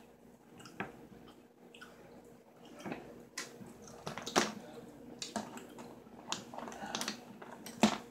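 Boiled blue crab being cracked and pulled apart by hand: irregular wet snaps, crunches and squishes of shell and meat, the sharpest about four and a half seconds in and again near the end.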